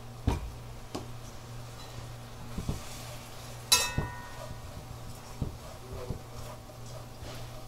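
A utensil knocking and clinking in a frying pan while dried anchovies are stirred together with a thickened sauce and nuts. The knocks are irregular, and the loudest, a ringing metal clink, comes about four seconds in, over a steady low hum.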